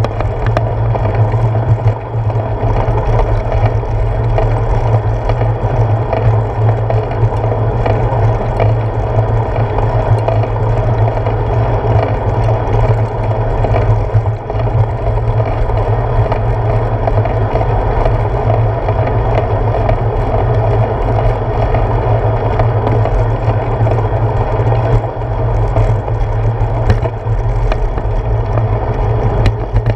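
Steady rumble and rattle of a bicycle rolling along a paved path, carried through the handlebar into a GoPro camera mounted there, with small knocks from bumps in the surface.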